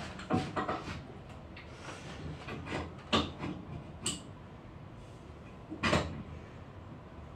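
A few sharp metal knocks and clicks at irregular intervals, from small metal parts and a tool being handled on a workbench clamp.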